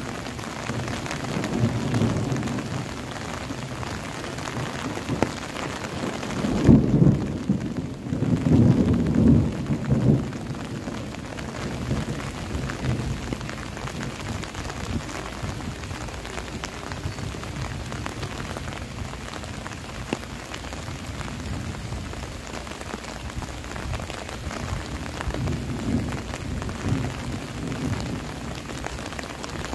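Steady rain falling on trees and foliage. About seven seconds in, a loud rolling peal of thunder swells twice over some three seconds and fades, with fainter low rumbles of thunder coming and going around it.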